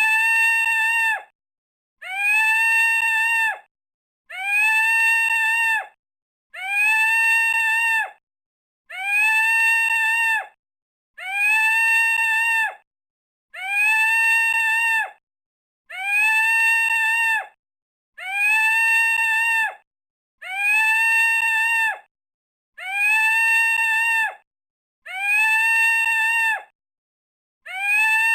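Peacock calling: a loud, held, nasal call that swoops up at its start and cuts off sharply, repeated about a dozen times at even intervals of roughly two and a half seconds, each call identical.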